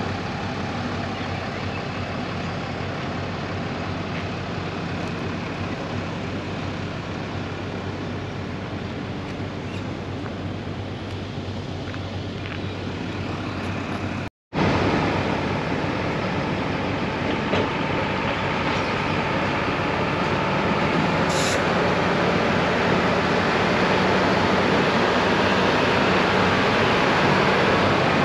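Steady engine and running noise of a motor vehicle on the move, with a low hum under a rushing noise. Partway through it cuts to a louder stretch of the same kind of noise.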